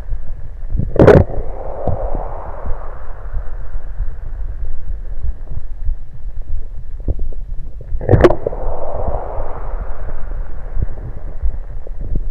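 Carbonated soda going down into a person's stomach, heard close against the belly: two sharp gulps about seven seconds apart, each followed by a second or two of hissing, fizzy gurgling, over a steady low rumble.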